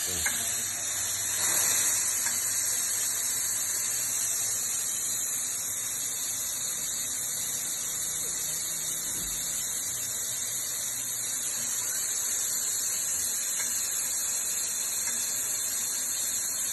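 La Spaziale espresso machine's steam wand hissing steadily, a little louder about two seconds in.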